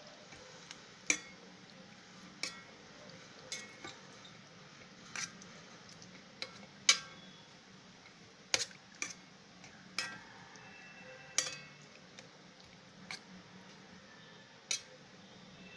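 A metal spoon clinking against the aluminium inner pot of a rice cooker while stirring: about a dozen sharp, irregular clinks with brief ringing.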